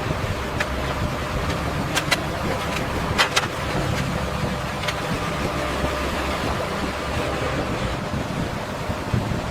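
Engine running steadily with a low rumble, with a few sharp clicks or knocks over the first five seconds.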